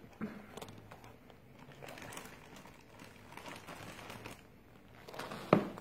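Plastic bag crinkling and rustling as it is handled, with one sharp click near the end.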